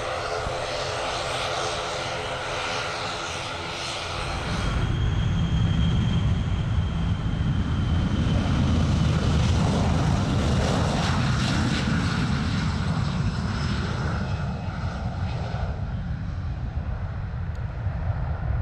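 Boeing 737 jet engines at takeoff power as the airliner climbs away: a steady jet noise carrying a whine of fan tones. About four seconds in, the sound changes abruptly to a louder, deep rumbling jet noise that continues to the end.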